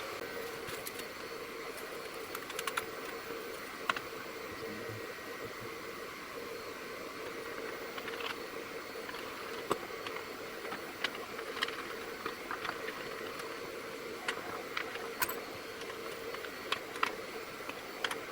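Scattered light clicks and taps from wood pieces being handled and set on a CNC router's wasteboard, over a steady mechanical hum.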